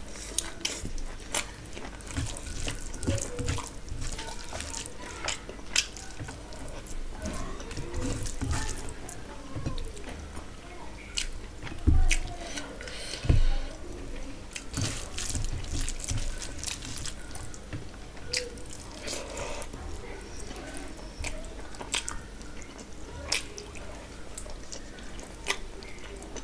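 Close-up wet chewing and lip-smacking of a person eating rice and curry by hand, with many short moist clicks. Two low thumps about halfway through are the loudest sounds.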